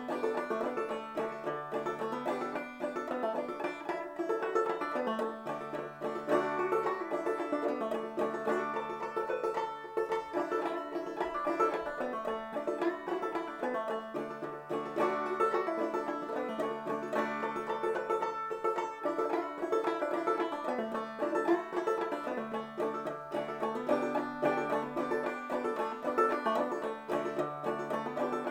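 Five-string banjo played clawhammer style in the key of D: an old-time tune of quick, steady plucked notes with a phrase that repeats every few seconds.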